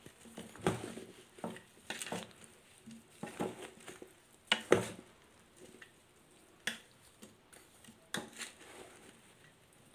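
Metal spoon stirring chopped raw mango pieces coated in spice powder in a steel bowl: irregular scrapes and clinks against the bowl, the loudest a little before five seconds in.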